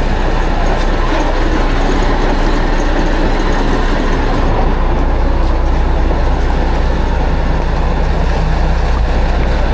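Heavy engine of a fire truck running steadily, a constant low hum under a dense rush of noise.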